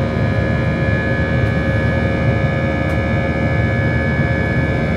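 Cabin noise of an Airbus A320 with IAE V2527-A5 turbofans at climb thrust: a steady low roar with several steady whining tones over it.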